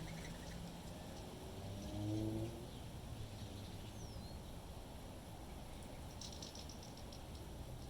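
Wind rumbling on the microphone, with small birds chirping: a thin falling whistle about four seconds in and a quick run of high chirps a little over six seconds in. About two seconds in comes a brief rising hum, the loudest moment.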